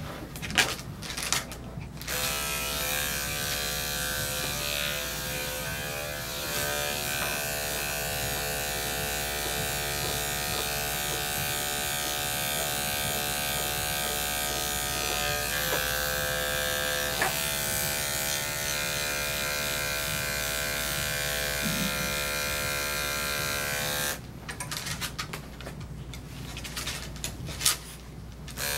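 Corded electric dog clippers with a #10 blade running steadily while shaving a matted coat down short. The motor hum starts about two seconds in and stops for a few seconds near the end, with a few handling knocks, before starting again at the very end.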